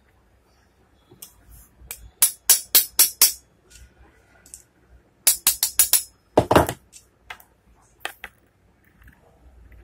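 Hammer tapping a new ball bearing onto an angle grinder's armature shaft. Two quick runs of about five sharp taps each, then one heavier knock and a few lighter taps.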